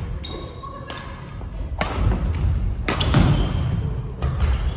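Badminton rally: two sharp racket strikes on the shuttlecock, about a second apart, with players' footsteps thudding and shoes squeaking on a wooden gym floor, echoing in the hall.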